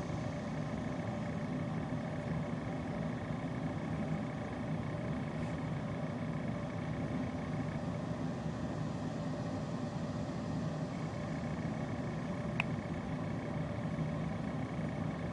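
Steady low rumble and hum that does not change, with a single faint click about twelve and a half seconds in.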